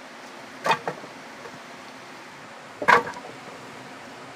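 Two sharp knocks of wood striking wood, about two seconds apart, the first doubled and the second louder: a length of wood being swung down onto firewood to break it. A steady rush of the river runs underneath.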